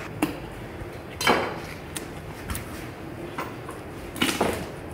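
Knocks and thuds of a whole lamb carcass being handled and cut on a cutting board: a few sharp knocks, the loudest about a second in, and a heavier double bump near the end as the carcass is lifted and shifted.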